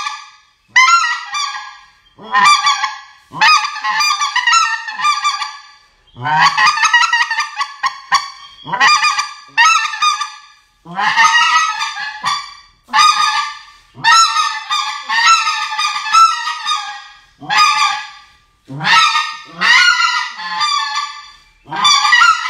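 A goose call blown by hand in a long series of short runs of honks and clucks, each run a burst of quick notes, in imitation of white-fronted geese.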